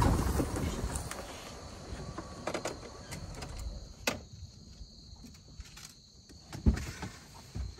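A vehicle's rumble and wind noise fading away over the first second as it slows to a stop, then quiet with scattered light clicks and knocks and one heavier thump near the end.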